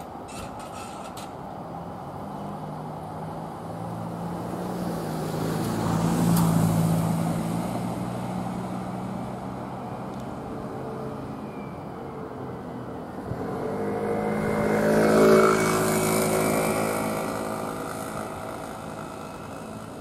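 Road traffic: two motor vehicles pass, the first swelling to a peak about six seconds in and the second, louder, about fifteen seconds in, each rising and then fading with an engine hum.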